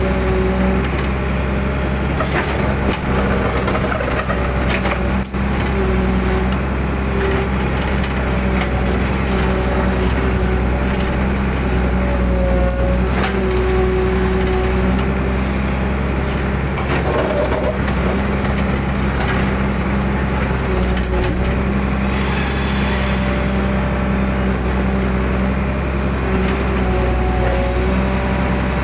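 Excavator diesel engine running steadily under load. A hydraulic whine comes and goes as the boom and bucket move, while the bucket scrapes through soil and crushes brush with occasional cracks.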